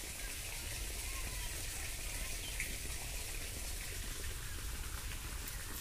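Steady hiss of light rain falling after a storm, with a low rumble of wind on the microphone.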